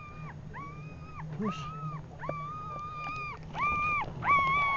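A dog whining in a string of about six high, drawn-out cries, each rising and then falling away, some brief and some held for about a second.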